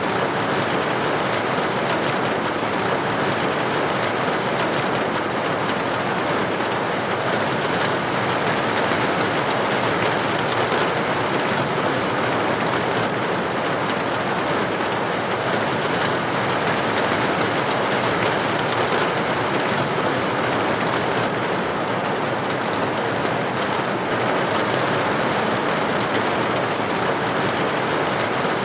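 Steady rain pattering on a window pane, an even hiss of drops with faint individual taps.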